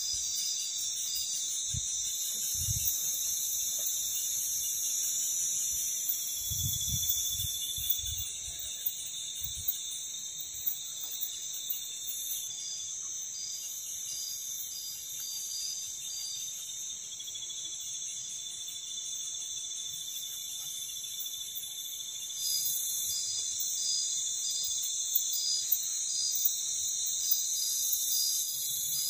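Night insect chorus of crickets and other insects: dense, steady high-pitched trilling and buzzing, with a row of regular pulsing chirps. A few dull low thumps come in the first ten seconds.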